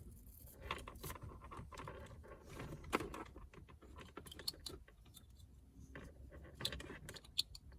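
Faint scattered clicks and rustling of car-stereo wiring harness plugs and cables being handled and unclipped, with a sharper click about three seconds in and another near the end.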